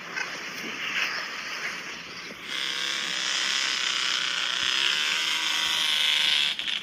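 A steady hiss, then about two and a half seconds in a louder, steady small engine running, heard with the custom paddle-tired three-wheeler.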